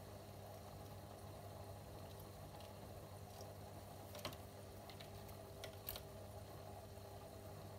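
Faint steady hum of an aquarium air pump driving a sponge filter, with a few short clicks about four and six seconds in.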